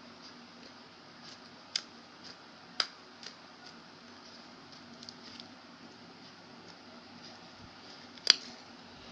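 Clay slime being squished and stretched by hand, with a few short sharp clicks or pops, the loudest one near the end.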